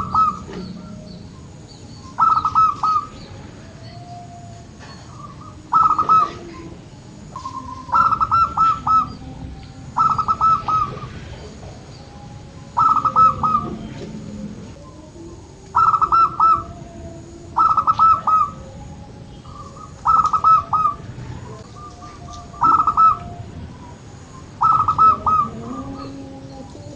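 Zebra dove (perkutut) cooing: a stuttering, trilled coo phrase repeated about every two seconds, about a dozen times. Fainter, lower calls sound between the phrases.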